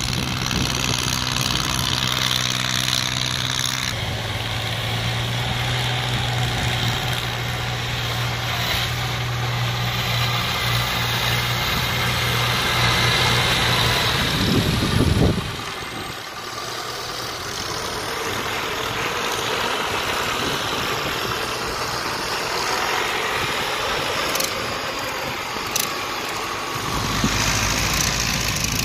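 Engine of a homemade tracked soil carrier running as it drives loaded with earth, a steady hum whose note changes abruptly about 4 and 15 seconds in.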